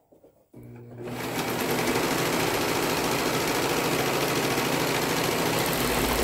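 Brother 1034DX serger (overlocker) stitching a seam through two layers of cotton fabric. It starts softly about half a second in, comes up to full speed by about a second in, and then runs steadily.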